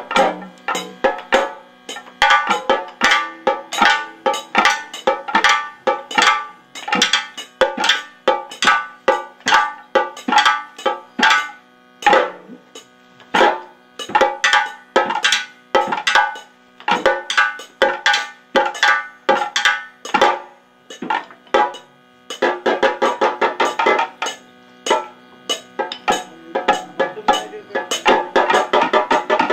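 Kathakali percussion music: a fast, continuous run of sharp, ringing drum strikes, thickening into dense rolls a little after two-thirds of the way through and again near the end.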